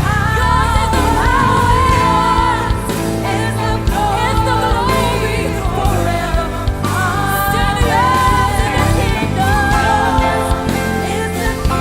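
Live gospel worship music: singers with band accompaniment and a steady bass, a held sung melody line over the instruments.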